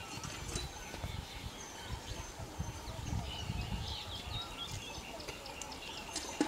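Faint, scattered high bird chirps over steady low background noise.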